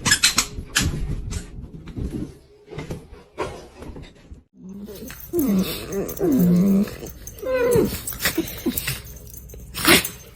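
A dog whining and vocalizing in a string of calls that bend up and down in pitch, after a run of sharp knocks and clicks; a loud knock comes near the end.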